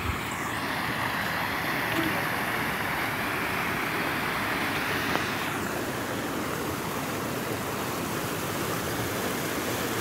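Steady rushing of a rocky stream, water pouring over stones.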